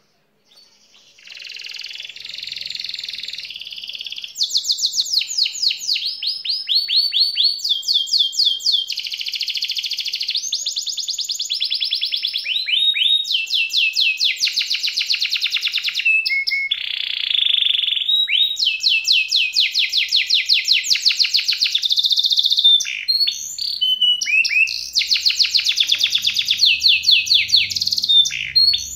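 Domestic canary singing a continuous song of fast rolling trills: phrase after phrase of rapidly repeated high notes, many of them quick falling sweeps, starting about a second in.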